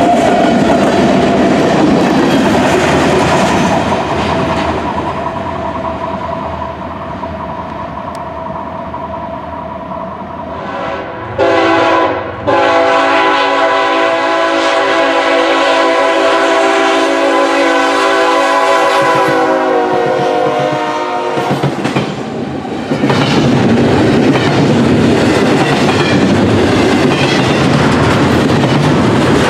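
Freight train cars rolling past, then a diesel freight locomotive's air horn: a short blast followed by a long one of about nine seconds whose pitch drops slightly near its end. After it, the loud rumble of double-stack container cars rolling past close by.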